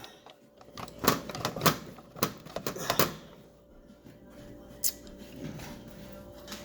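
Sharp metal clicks and taps from handling an electric stove's coil element and its push-on wire terminals: four in the first three seconds and one more near five seconds.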